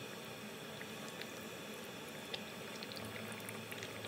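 Chicken curry simmering in a kadai: a steady low bubbling with scattered small pops, as a ladle scoops through the sauce to lift out tomato skins.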